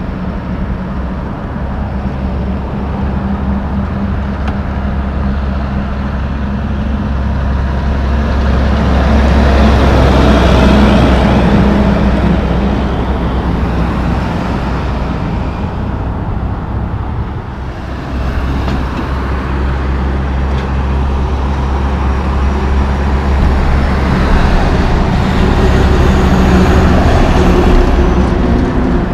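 Loaded Western Star logging trucks' diesel engines and tyres passing on a highway with other traffic. The steady low engine drone and road noise swell as a truck goes by about ten seconds in. After a break about seventeen seconds in, the sound builds again to a peak near the end as a log truck passes close.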